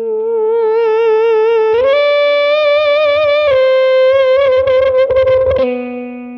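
Electric guitar through a Digitech FreqOut feedback generator pedal: held notes sustaining into smooth, singing feedback tones with wavering vibrato. The pitch steps up about two seconds in and shifts twice more, with some scratchy string noise under the later notes.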